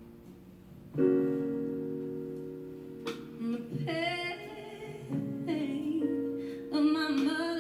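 A woman singing a ballad with vibrato over live piano accompaniment. A piano chord is struck about a second in and held, and the voice enters a few seconds later.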